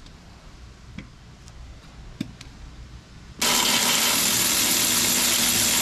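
Handheld power tool with a 3/4-inch socket running for about two and a half seconds, starting suddenly about three and a half seconds in, as it backs out a rear-shock mounting bolt on a motorcycle. Before that, a few light clicks of the socket being fitted to the bolt.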